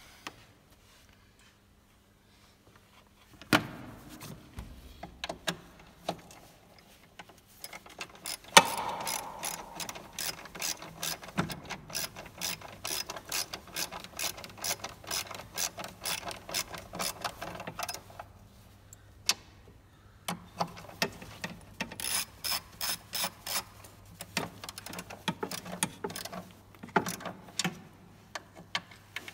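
Ratchet wrench clicking in long, rapid runs as a bolt on the diesel fuel filter housing is turned, with a short pause in the middle. A single knock comes a few seconds before the ratcheting starts, and a faint steady low hum runs underneath.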